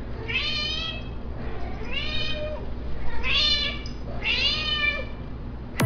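Domestic cat meowing four times in a row, each meow drawn out and rising then falling in pitch, a little over a second apart, as it greets its owner home.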